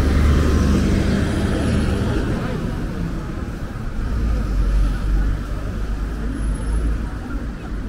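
City road traffic: cars and buses running past on the street alongside, a steady low engine and tyre rumble, loudest as a vehicle goes by near the start.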